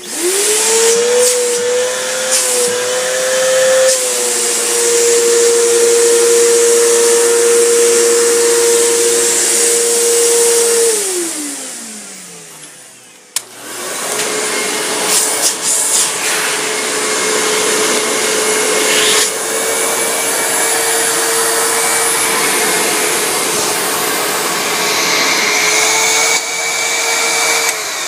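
Upright vacuum cleaner motor switching on and running with a steady whine while it draws air through its hose. About 11 seconds in it is switched off and its pitch falls as it winds down. A vacuum starts again about 13 seconds in and runs until just before the end.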